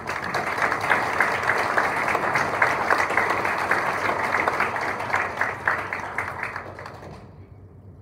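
Audience applauding, many hands clapping, dying away about seven seconds in.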